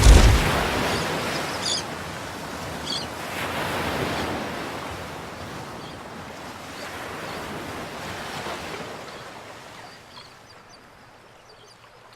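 Ocean surf: waves breaking and washing in, in several swells, the first and loudest right at the start, fading out near the end.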